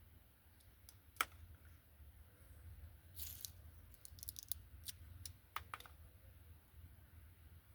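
Scattered sharp clicks and taps, one louder click about a second in and a quick cluster of them a few seconds later, over a faint low hum.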